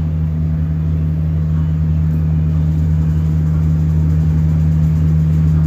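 A steady low hum that runs on without a break and grows slightly louder.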